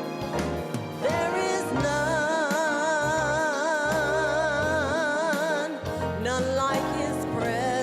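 Gospel song with instrumental accompaniment; about two seconds in, a singer holds one long note with a wide vibrato for several seconds, then the melody moves on.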